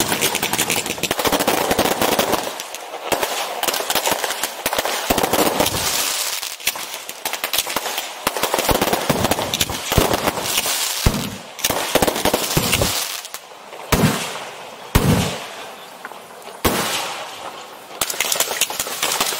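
Strings of firecrackers going off in a dense, rapid crackle, with several heavier, deeper bangs about halfway through and after.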